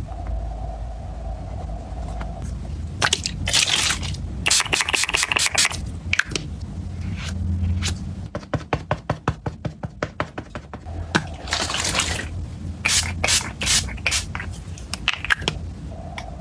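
Makeup powder puff handled and patted with the fingers: rustling scrapes, then a rapid run of soft taps for a few seconds, then more scraping strokes.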